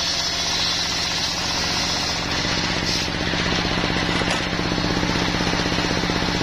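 Stationary single-cylinder diesel engine running steadily with a fast, even thud, driving a large circular sawmill blade. The blade cuts through a log for the first couple of seconds, a high hiss over the engine, and briefly again about three seconds in.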